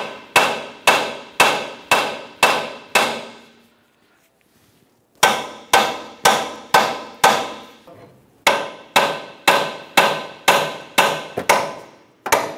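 Hammer striking a rusted lower control arm beside the ball joint: sharp ringing metal blows, about two a second, in three runs with short pauses about 3.5 s and 7.5 s in. The tapping vibrates the joint so that penetrant works in and the stuck ball joint separates from the control arm.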